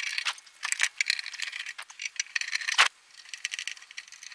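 Phillips screwdriver turning out the cover screws of a Sony CDP-C325 CD player: a run of small metallic clicks and scrapes, with one sharper clink a little under three seconds in.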